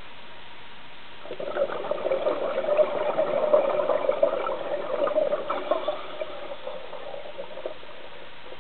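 Scuba diver's exhalation: a burst of air bubbles gurgling out of the regulator, starting about a second in and dying away over the next five seconds or so.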